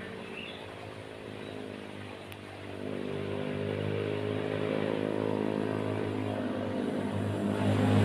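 A motor engine running with a steady drone, getting louder about three seconds in and again near the end as it comes closer.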